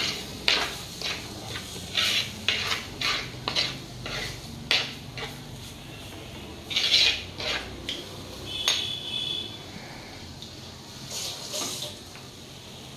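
Steel spoon scraping and clinking against a clay pot while stirring spice-coated pieces frying in it, with a light sizzle underneath. The strokes are irregular, thick in the first few seconds, then sparser.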